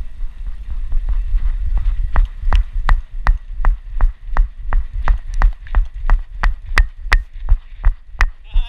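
A dog running, heard from a camera strapped to its body. Its strides come through as even knocks and clicks, about three a second, from about two seconds in, over a low rumble of the camera being jostled.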